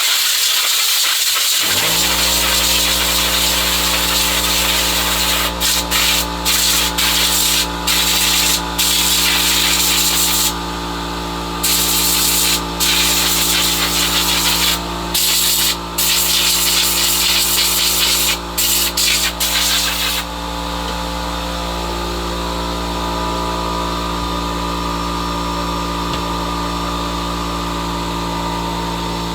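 Compressed-air blow gun hissing in repeated on-off blasts as it blows off a chainsaw's intake hose and plastic parts. An electric air compressor starts up about two seconds in and runs steadily, left switched on by mistake. The blasts stop about two-thirds of the way through, leaving only the compressor running.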